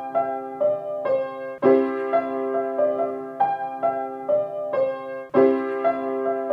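Background piano music: a short phrase of single struck notes played over and over, starting again about every three and a half seconds.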